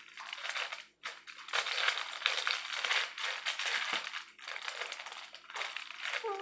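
Stiff, hardened crisped-rice cereal treat mixture crunching and crackling as hands squeeze and press it into shape, in several long stretches broken by short pauses.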